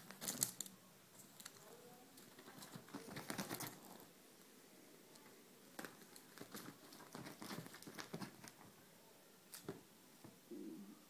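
Faint rustling and light pattering of a cat scrambling and pouncing on a fabric bedspread while it plays with a stick toy. The sound comes in several short bursts with quieter gaps between.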